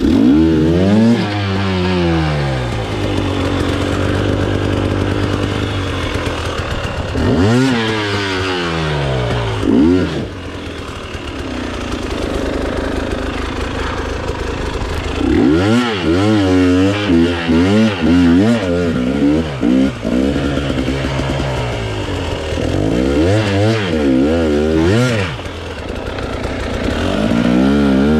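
Single-cylinder two-stroke engine of a 2023 KTM 300 XC-W dirt bike revving hard in repeated bursts, its pitch rising and dropping again and again as it is worked under load up a steep hill climb.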